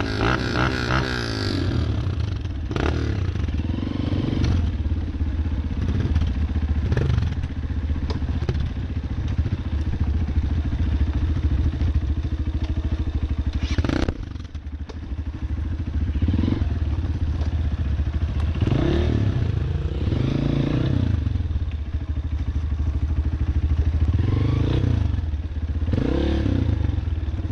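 Off-road trail motorcycle's single-cylinder engine running under load, its pitch rising and falling again and again as the throttle is worked. There are a few sharp knocks, and about fourteen seconds in the engine noise drops off sharply for a moment before picking up again.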